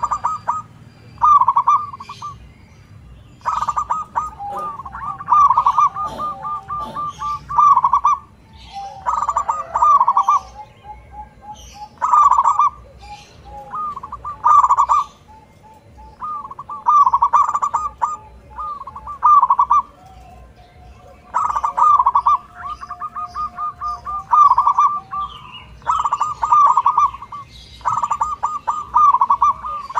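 Zebra dove (perkutut) cooing: bursts of rapid, bubbly, rolling coos repeated every couple of seconds, with short pauses between phrases.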